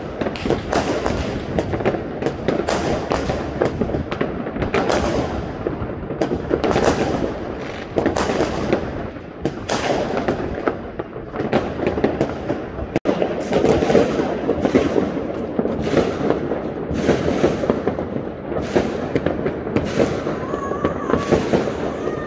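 Many fireworks rockets bursting at once: a dense, unbroken barrage of overlapping bangs and crackles.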